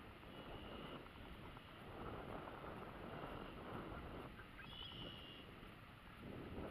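Steady wind noise on the microphone over open water, with a faint high bird call about half a second in and again about five seconds in.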